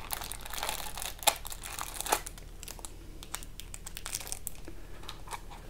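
Clear plastic bag wrapped around a small electronics enclosure crinkling as it is handled, lifted out of its cardboard packaging and set down: a run of scattered crackles, busiest in the first half, with a couple of sharper ones.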